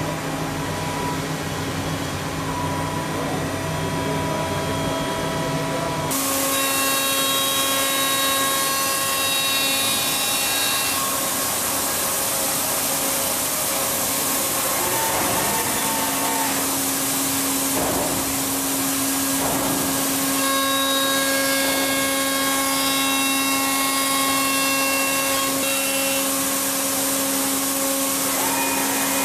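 Five-axis milling machine's spindle running as it mills the teeth of a gear: a steady whine made of several tones over a cutting hiss. The tones change abruptly about six seconds in and shift a few more times.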